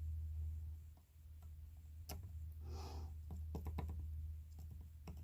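Scattered small clicks and taps of hands handling guitar wiring, solder and small parts during a fiddly soldering job, with a cluster of quick ticks in the middle, over a steady low hum.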